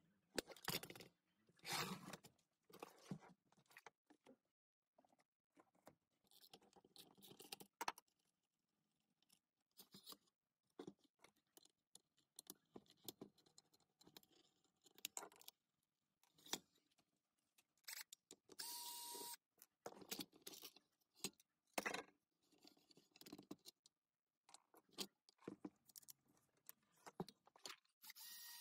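Faint, scattered clicks, taps and scrapes of hand tools and metal parts being handled as a circular saw is taken apart with a screwdriver, with a short steady whir about two-thirds of the way in.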